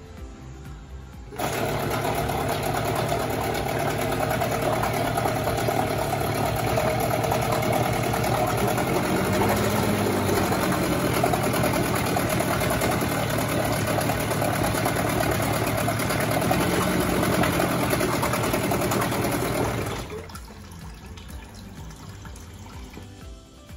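Hangkai 12hp two-stroke outboard engine running steadily. It cuts in abruptly about a second in and dies away a few seconds before the end, with the pitch lifting briefly twice as it is revved a little.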